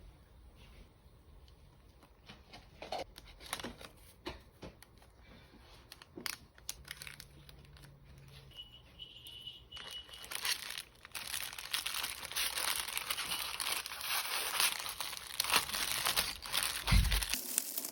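Packaging being handled and torn open: scattered rustles and taps at first, then continuous crinkling and tearing of wrapping from about ten seconds in.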